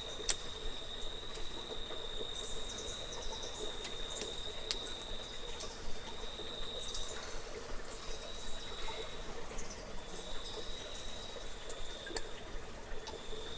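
Insect trilling on one steady high pitch, breaking off briefly now and then, with scattered sharp clicks and short chirps over a soft background hum.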